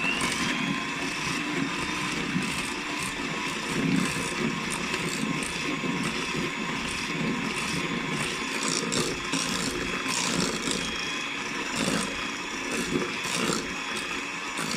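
Electric mixer starting up suddenly and running steadily, beating eggs and sugar for a cake batter, with a few light knocks from the beaters.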